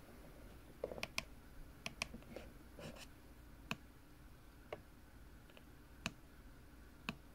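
Faint clicks of the keypad buttons on a Baofeng BF-18H handheld radio being pressed: a quick run of presses in the first three seconds, then single presses about once a second.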